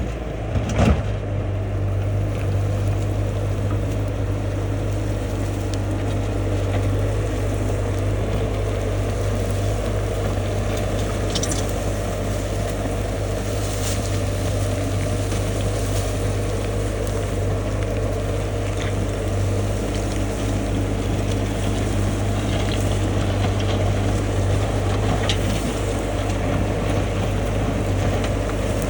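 Diesel engine of a Bobcat T650 track loader running steadily with a low hum. A sharp knock comes about a second in, and a few faint clicks follow later.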